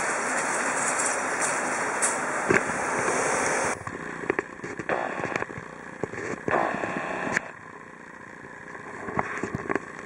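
Steady, loud running noise from a Sassi–Superga rack-railway car, which cuts off suddenly about four seconds in. After that, quieter scattered clicks and knocks.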